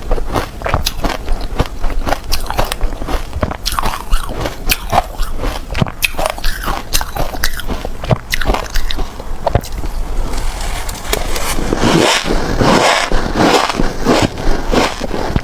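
Shaved ice being bitten and chewed close to the microphone: a quick run of sharp crunches and cracks, thickening into dense crunching for a few seconds near the end.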